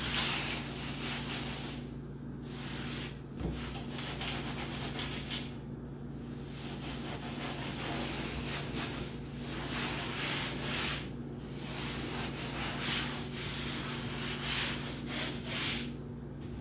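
A kitchen scouring sponge scrubbed back and forth over a wet tabletop, a rasping rub in repeated strokes with a brief pause every few seconds. A low steady hum runs underneath.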